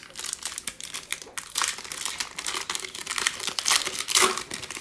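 Foil wrapper of a Panini Mosaic basketball trading-card pack being torn and pulled open by hand, a dense run of crinkling crackles that is loudest near the end.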